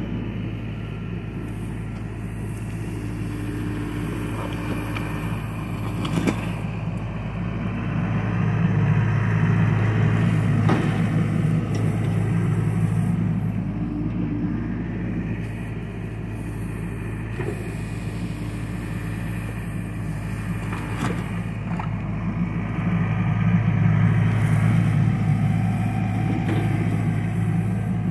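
John Deere 60G compact excavator's diesel engine running steadily, working harder and louder twice as the hydraulics drive the boom and bucket through the trench. A few sharp knocks sound over the engine.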